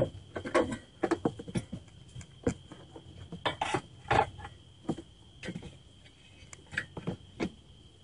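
Irregular clicks, taps and knocks of a camera being handled and repositioned, over a faint steady high-pitched whine.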